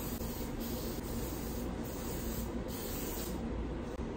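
Lysol disinfectant aerosol spray can hissing steadily, with a few brief breaks.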